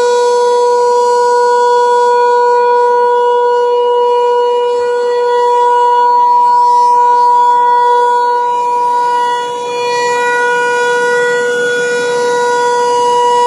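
Federal Signal 508 outdoor warning siren sounding a steady tone that holds one pitch without rising or falling. It is very loud, swelling and easing slightly in loudness as it runs.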